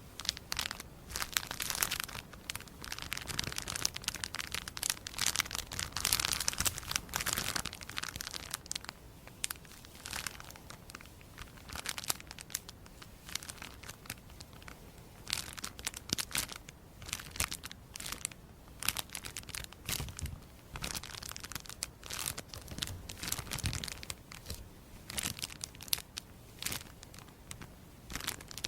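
Close, crisp crinkling and crackling, an irregular run of sharp little clicks and rustles, denser and louder in the first several seconds and again near the end.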